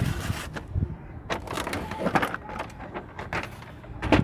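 A plastic toy truck's box trailer being handled: scattered light clicks and knocks of plastic parts, with the sharpest click near the end.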